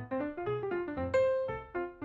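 Background music: a light piano or keyboard melody of short, quick notes.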